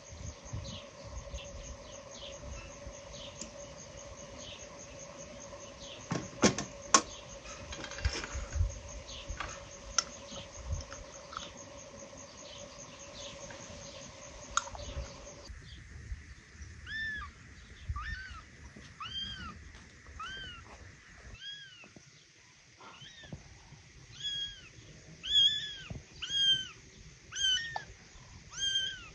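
A steady insect drone with fast chirping runs through the first half, broken by a few sharp knocks about six to seven seconds in. Then a cat meows over and over, short high calls about once a second, growing louder near the end.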